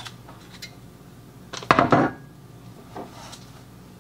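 Cooking pot being handled: a clatter of several knocks a little under two seconds in, with a few light clicks before it and one more small knock near the end.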